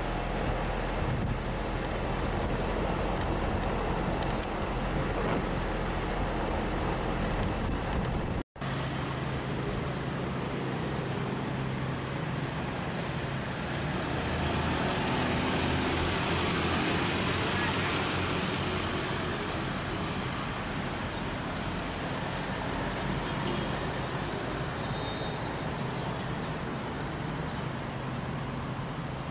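Road traffic noise: vehicles running steadily, with one louder swell of tyre and engine noise about halfway through as a vehicle passes. The sound drops out for an instant about a third of the way in.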